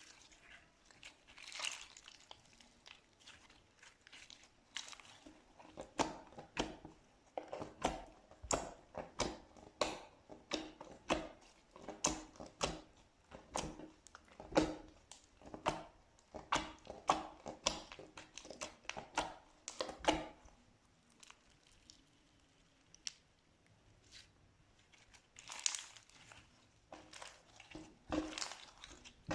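Slime being pressed and squished by hand: a run of short popping squelches, about two a second, with a lull of a few seconds about two-thirds of the way through.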